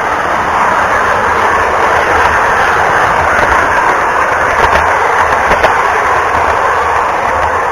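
O scale model train rolling along three-rail track, heard up close from a car pulled behind the locomotive: a loud, steady rumble of wheels on the rails with occasional sharp clicks.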